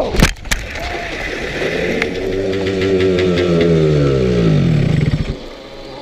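Several sharp impacts as a two-stroke scooter strikes a deer and goes down. The scooter's engine then keeps running, its pitch slowly sagging, and cuts out about five seconds in.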